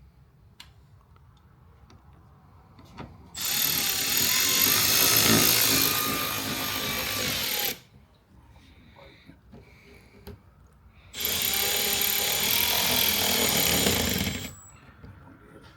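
Power drill running in two bursts, the first about 3.5 s in and lasting about four seconds, the second about 11 s in and lasting about three, each with a high whine whose pitch drops a little as it runs.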